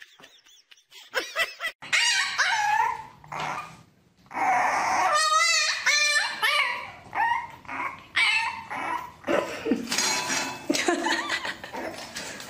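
A puppy yipping and whining over and over in short, high calls that rise and fall, starting about two seconds in, with a quick wavering run of calls about five seconds in.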